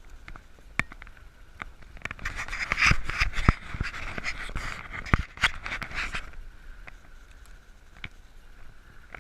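Footsteps trudging and crunching through deep, unplowed snow, about one step a second. For a few seconds in the middle the crunching grows louder and denser.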